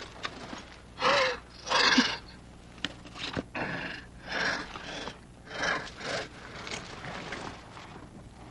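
A man panting and gasping in fright, a series of heavy breaths with the two loudest about a second and two seconds in and weaker ones after.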